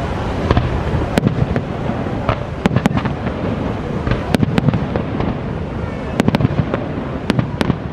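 Aerial fireworks bursting: a dozen or so sharp bangs and crackles in two quick clusters, over a steady rushing noise from the waterfall.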